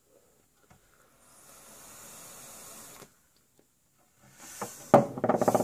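A drag on a dual nano-coil rebuildable atomizer fired from a mechanical mod, with 0.47-ohm, 28-gauge Kanthal coils: air rushes through and the coils sizzle for about two seconds. Near the end comes a louder, rough and pulsing voiced sound as the vapour is blown out.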